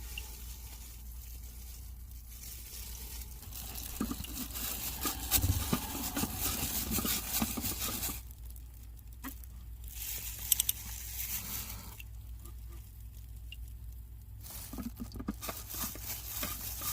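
Intermittent rustling and scraping from hands handling the new cartridge oil filter element and its housing, over a low steady hum.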